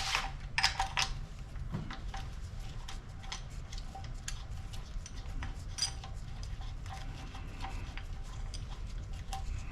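Metal parts and hand tools clinking and tapping as they are handled: a sharp click at the start, a few more close together about a second in, then scattered lighter ticks.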